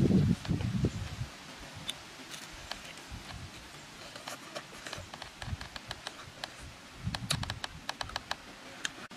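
A person eating roasted chicken: chewing with a run of small sharp clicks and crunches, and a few low muffled thumps at the start and again about seven seconds in.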